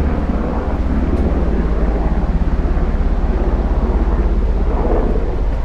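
Wind buffeting the camera's microphone while walking: a loud, steady low rumble with a fast flutter.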